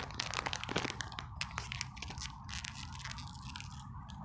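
Plastic foil ice-lolly wrapper crinkling and tearing as it is pulled open by hand: a run of sharp crackles that thins out toward the end.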